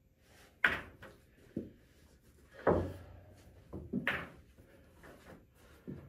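Pool balls knocking on a pool table: a sharp clack about half a second in, then the cue ball dropping into a corner pocket with a heavier thud, followed by softer knocks as the ball is handled in the pocket.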